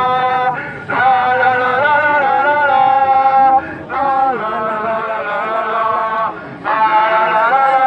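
A man singing a slow melody in long held notes, with short breaks between phrases about a second in, just before four seconds in, and again past six seconds.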